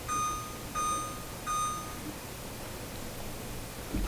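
Electronic beeps from an LG range's control panel: three identical high beeps in a row, about 0.7 s apart, as settings are stepped through on the keypad.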